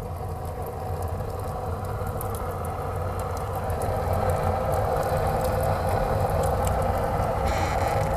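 Wood fire in a cast-iron fireplace firebox drawing hard under a strong chimney draft: a steady rushing rumble like a rocket engine that grows louder over the first few seconds, with scattered crackles from the burning wood. The firebox has just been loaded with plenty of wood.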